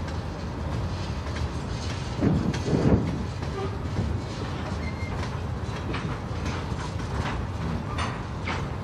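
Freight train rolling past, its cars' wheels clicking and clattering on the rail over a steady low rumble, with two louder thumps between two and three seconds in.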